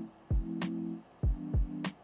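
Lo-fi beat music: held low chords over a steady beat of deep kick thuds and sharp snare hits.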